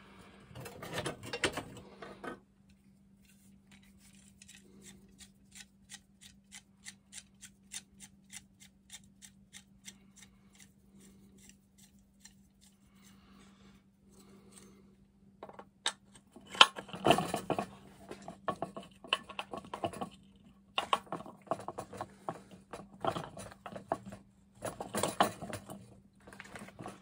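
Workshop handling sounds: a run of light, evenly spaced clicks, about three a second, then irregular metallic clanks and clatter as heavy weights are shifted and set down on a glue-up, over a faint steady hum.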